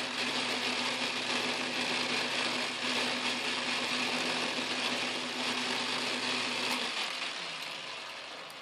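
Lathe motor and spindle running, with an end mill taking a light pass of about a thousandth of an inch across a metal rod held in a milling-attachment vise. It makes a steady hum with an even cutting hiss. The motor switches off about seven seconds in and the spindle spins down, the hiss fading.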